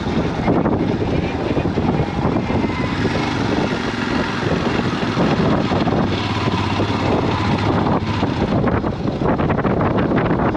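Adventure motorcycle's engine running at low speed, heard from the rider's seat as the bike goes slowly down a rough dirt track.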